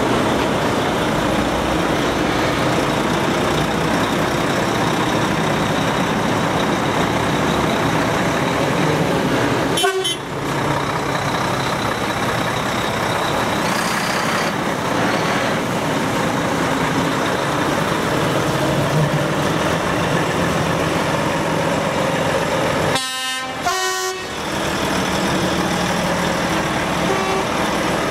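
Volvo FH tractor units driving past one after another, their diesel engines running, with toots of a truck horn.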